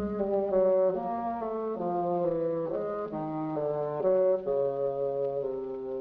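Orchestral cartoon score with brass, French horns to the fore, playing a chain of held chords that step from one to the next, the chords lengthening toward the end.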